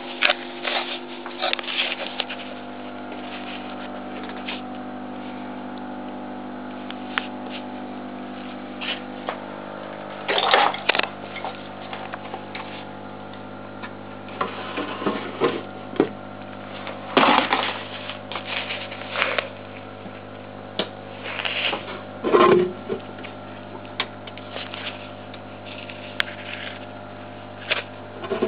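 Steady electrical hum made of several fixed tones, broken by irregular clicks, knocks and a few louder scraping bursts.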